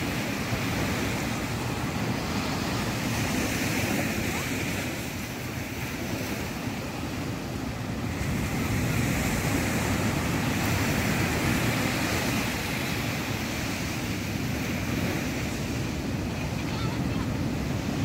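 Ocean waves breaking and washing up a sandy beach in a continuous rush of surf, easing slightly about five seconds in and swelling again a few seconds later.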